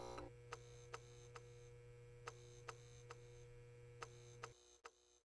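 Faint sound-effect electrical hum of switched-on lamps, a low buzz with a higher steady tone above it, dotted with light ticks about twice a second. The hum cuts out about four and a half seconds in, and the ticks carry on.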